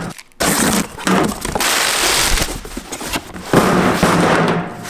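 Cardboard shipping box being torn open: packing tape ripping and cardboard crackling in two long, loud stretches with a short break about three seconds in.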